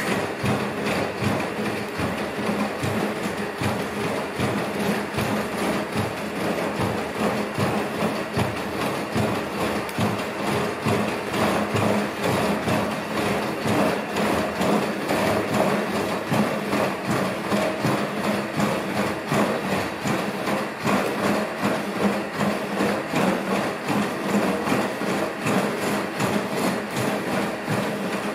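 ANYmal quadruped robot trotting, its feet knocking on the floor in a quick, steady rhythm over the steady hum of its joint motors.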